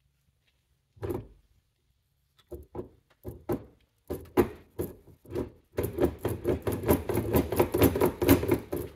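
Ford 9-inch carrier and ring gear being rocked back and forth by hand in the third-member case, metal parts clunking against each other. It starts with a single knock, then the clunks come faster and louder, several a second. The carrier is hitting the inside of the case.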